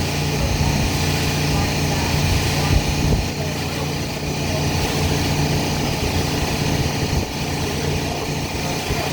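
Small engine running steadily at an even idle.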